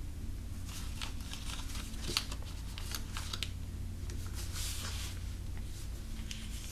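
A square of origami paper rustling and crinkling under the fingers as a flap is opened out and squash-folded flat: scattered soft rustles and small crease clicks over a steady low hum.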